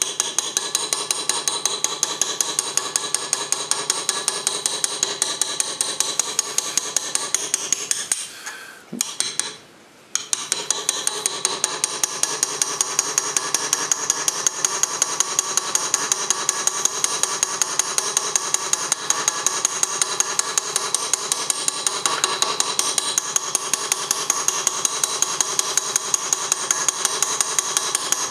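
Small steel engraving hammer tapping a hand-forged graver in quick, even taps, several a second, driving it through test metal held in a vise; each tap has a metallic ring. The tapping stops for about two seconds near the middle, then resumes.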